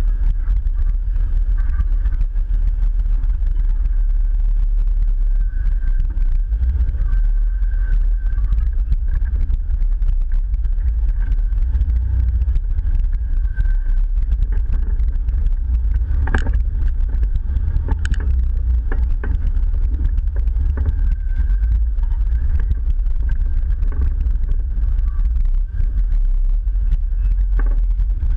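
Jeep engine running at low speed as it crawls over a rocky off-road trail, a steady low rumble. Two sharp knocks stand out past the middle, with lighter clicks from the rig working over the rocks.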